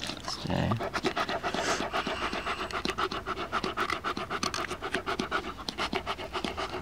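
Yellow Labrador retriever panting quickly and evenly.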